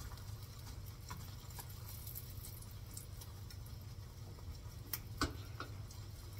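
An egg frying in butter in a nonstick pan, the butter faintly popping and crackling in scattered sharp ticks, with a couple of louder pops near the end, over a steady low hum. The popping is a sign that the heat is too high.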